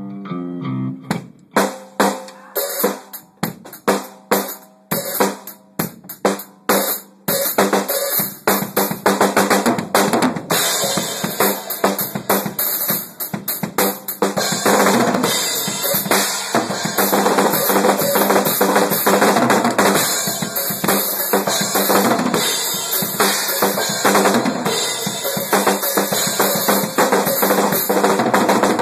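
Drum kit played solo, with bass drum and snare hits. Separate strokes with short gaps at first, building into fast continuous playing with cymbals washing over it from about ten seconds in.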